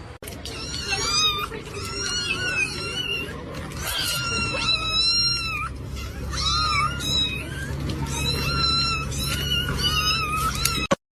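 Cat meowing: a long string of short, high-pitched calls that bend up and down, some overlapping one another, over a steady low rumble.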